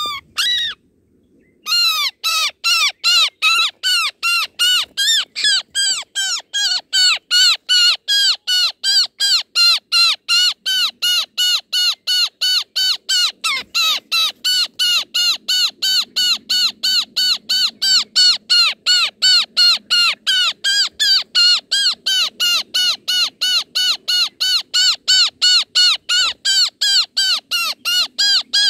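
Roller nestlings calling in the nest: a steady run of short, harsh, rasping calls, about three a second. These are the chicks' begging calls for food.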